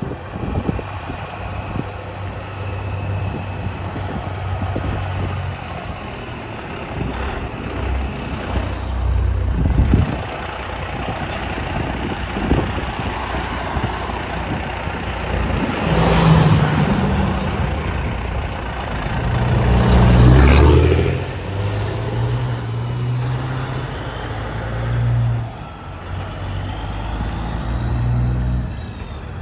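Semi truck diesel engines idling and pulling away one after another, the engine note stepping up as each truck accelerates. Two trucks pass loudest a little past halfway through.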